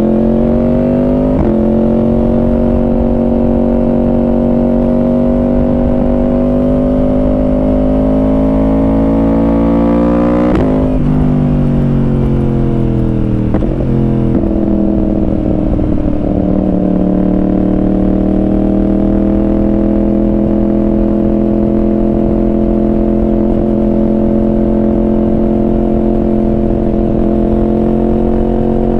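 Yamaha R1 inline-four sport bike engine through a Yoshimura exhaust, heard from on the bike: it pulls up through the revs, shifts up about a second and a half in, climbs slowly and shifts sharply again about ten seconds in, drops in pitch as the rider eases off, then settles into a steady cruise from about sixteen seconds on, rising gently.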